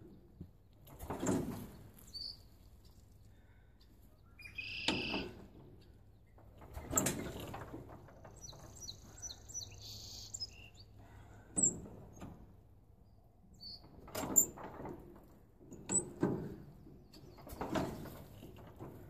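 Allis-Chalmers 20-35 tractor being hand-cranked without starting: a rough, noisy stroke every one to three seconds as the engine is turned over. Birds chirp between the strokes.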